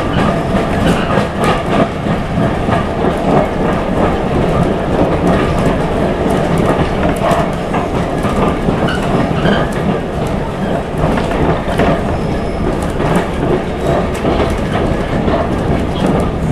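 Heard from inside a moving railway carriage: the steady rumble of the coach running along the track, with the clickety-clack and knocks of the wheels over the rail joints.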